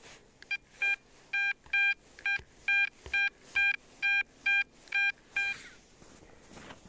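Metal detector sounding its target tone: about a dozen short beeps of one steady pitch, about two a second, some longer than others, as the coil passes back and forth over a buried metal target. The beeps stop about a second before the end.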